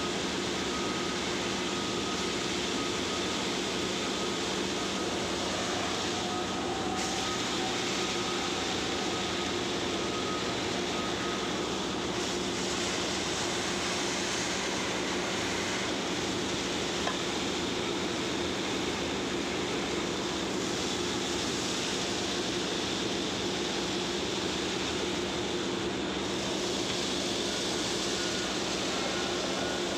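KOKS Megavac 8000 vacuum truck running at full suction: a loud, steady rush of air and dry nickel ore being drawn into a corrugated suction hose, over the steady hum of the truck's vacuum machinery, with a thin steady whistle in the first part and again near the end.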